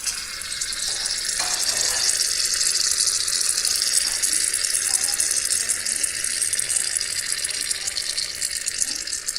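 Aerosol can of shaving foam spraying in one long, steady hiss that starts abruptly.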